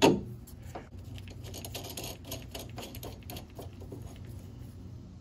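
A sharp metal clank, then a steady run of light, rapid clicking from a ratchet wrench running nuts down onto the leaf spring shackle plate.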